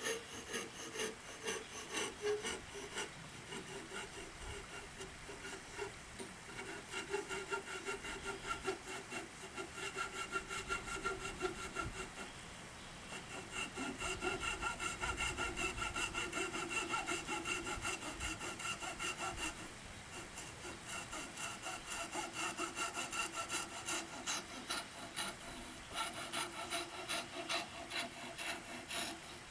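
Great Neck No.9 coping saw cutting through a piece of wood held in a vise, in quick, steady back-and-forth strokes, with a thin steady tone sounding through much of the cutting.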